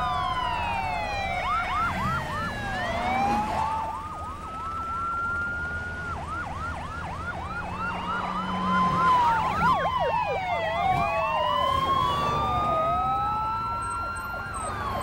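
Several police car sirens sounding at once, overlapping slow rising-and-falling wails with stretches of fast yelp about four cycles a second.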